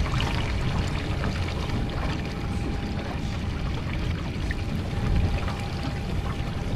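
Water slapping and sloshing against a small boat's hull over a steady wind rumble on the microphone.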